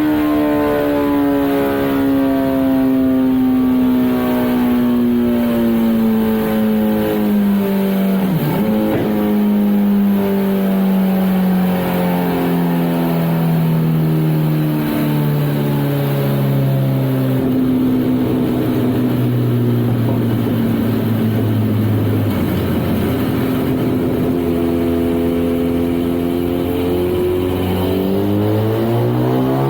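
Kawasaki ZX14R inline-four with a Brock's Alien Head exhaust running on a dyno. Its engine note winds down slowly and steadily from high revs over about twenty seconds, with a brief dip along the way, holds at a low note for a few seconds, then climbs again near the end.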